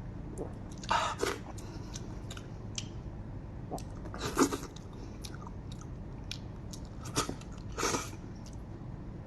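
Close-up chewing and biting of a person eating lamb head meat, with a few louder wet bites and smacks scattered through, the strongest around a second in, halfway and near the end.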